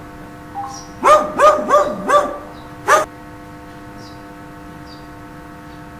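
Dog barking: four quick barks about a second in, then a fifth a moment later. A steady electrical hum runs underneath.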